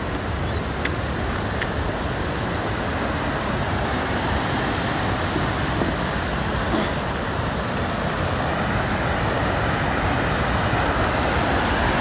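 Steady, unbroken rush of a fast mountain river.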